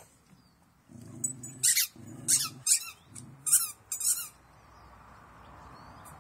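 A dog growling in play over a tennis ball, in three short low bursts about a second apart. Several sharp, louder hissy noises come between the growls, then after about four seconds only a faint steady hiss is left.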